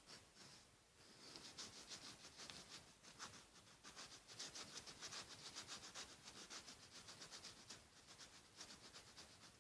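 Faint scratching of a colouring tool rubbed back and forth on paper, a quick run of strokes, several a second, starting about a second in.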